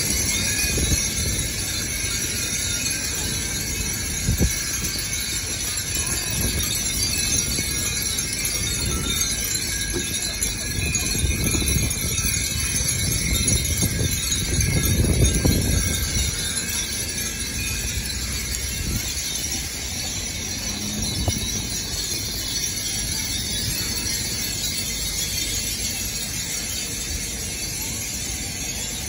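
Many Japanese glass wind bells (furin) and metal tube wind chimes tinkling in the breeze, a steady shimmer of high ringing tones. Beneath them is a low rumble that swells about 14 to 16 seconds in.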